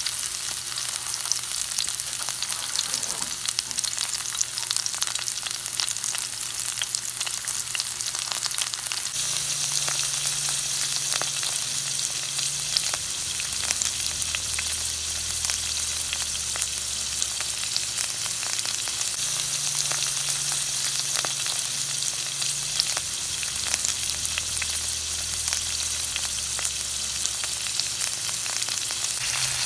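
Vegetables sizzling in hot oil in a wok: a steady frying hiss dotted with small crackles and pops as onion, garlic and Baguio beans (green beans) cook.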